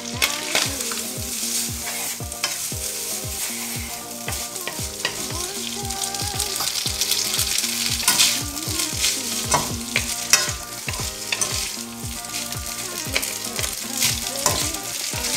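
Spaghetti sizzling in hot oil with tuyo (dried herring) in a skillet as it is sautéed and tossed with a wooden spatula and metal tongs, with frequent short clicks and scrapes of the utensils against the pan.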